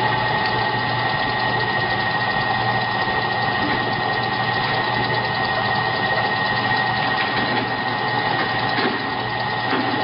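LY9365 brake lathe running steadily, its motor and drive giving an even mechanical hum with a steady whine.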